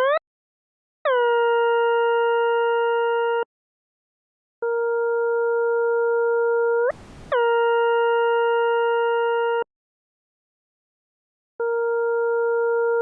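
Desmos graphing calculator's audio trace playing a graph as sound: a steady synthesized tone with overtones, held for a few seconds at a time and broken by silent gaps. The pitch swoops down into some stretches and shoots up at the ends of others, with a brief hiss about seven seconds in where the pitch jumps.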